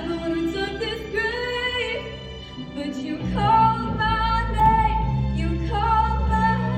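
A woman singing a contemporary Christian worship song over instrumental accompaniment, holding long sung notes. A deep bass comes in more strongly about three seconds in.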